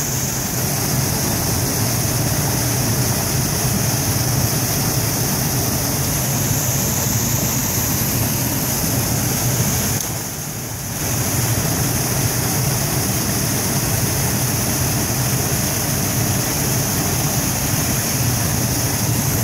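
Water pouring over the timbers of an old wooden dam into a pool: a loud, steady rushing, briefly quieter for about a second halfway through.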